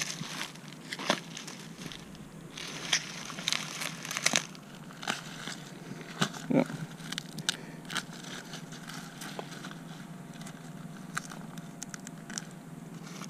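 Onions being pulled and handled: dry, papery onion leaves and skins rustling and crackling in irregular, sharp bursts.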